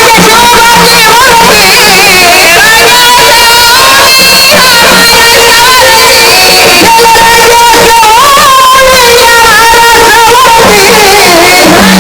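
Loud amplified gondhal devotional folk music: a long, wavering melody line held and sliding between notes over a low steady drone, played at full level.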